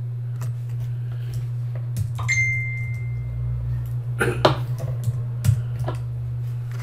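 Scattered clicks of a computer mouse and keyboard, about half a dozen, over a steady low hum. A single short high ping rings out about two seconds in and fades over about a second.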